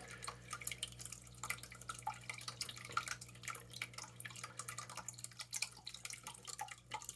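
AeroGarden Bounty's newly replaced water pump running with a faint, steady hum, its water trickling and dripping back into the reservoir. The pump is working again.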